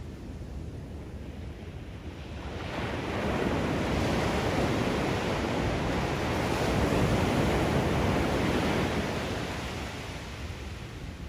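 Ocean surf on a beach: a low rush, then a wave breaking about two and a half seconds in, its wash holding for several seconds before easing off near the end.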